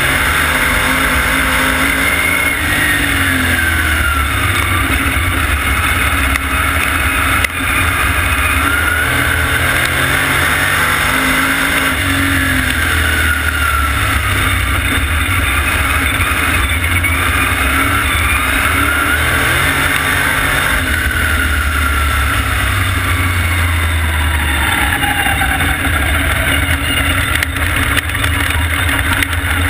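Vintage supermodified race car's engine heard from the cockpit, revving up along the straights and dropping off into the turns, over and over lap after lap. Near the end the revs fall to a lower pitch.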